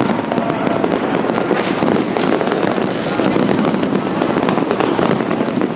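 Dense, continuous barrage of fireworks and strings of firecrackers going off all around, a steady loud crackling din with no let-up.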